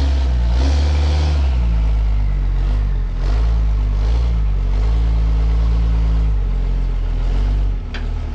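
Ram's 6.7-litre Cummins turbo-diesel pulling the truck slowly up a trailer's loading ramps, its note rising and falling several times as the throttle is worked, then easing off near the end.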